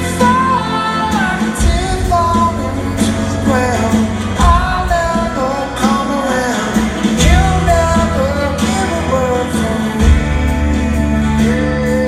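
Rock band playing live: a sung lead vocal melody over a full band with sustained bass notes and drum hits.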